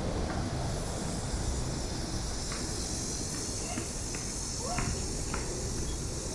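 Steady high-pitched insect drone in park trees, with a few short chirps about halfway through and a low rumble of wind or traffic underneath.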